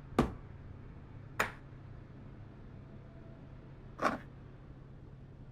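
Three short, sharp clicks or knocks, irregularly spaced: one right at the start, one about a second later and one about four seconds in, over a low steady hum.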